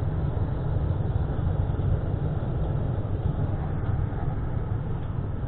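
Troy-Bilt Storm 2410 two-stage snowblower's engine running steadily at working speed while clearing snow.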